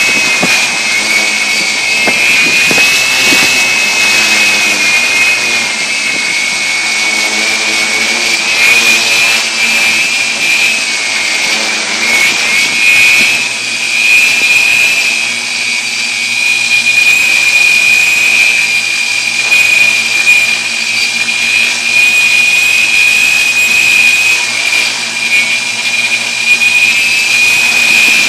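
Multicopter's electric motors and propellers running in flight, heard close up from the phone riding on the craft: a loud, steady high whine over a rushing hiss. The pitch wavers over the first half as the throttle shifts, then holds steadier.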